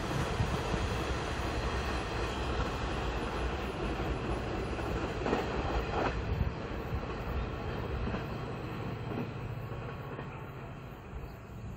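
Freight train running on the rails as it draws away, with a steady rolling rumble of wheels on track and two short clanks about five and six seconds in, slowly fading toward the end.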